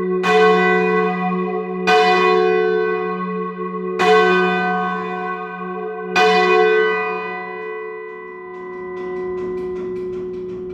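Heavy church tower bells, the back four of a ring of twelve, being rung up by rope. Four loud strokes come about two seconds apart, each with a long humming ring, and the last stroke is left to ring on and fade.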